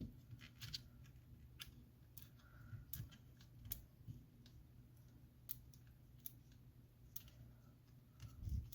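Faint, irregular clicks and small scrapes of a pry tool working under an iPhone X battery to break its adhesive, about one click a second or less, over a faint low hum.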